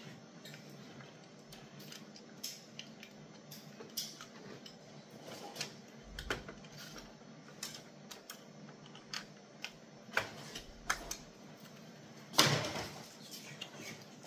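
Plastic housing parts and cable connectors being handled during reassembly of an ECG machine: scattered clicks, taps and light clatter, with one louder knock about twelve seconds in.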